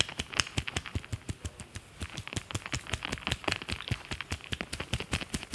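A barber's palms, pressed together, chopping rapidly on a lathered scalp during a head massage: a fast, steady run of sharp taps.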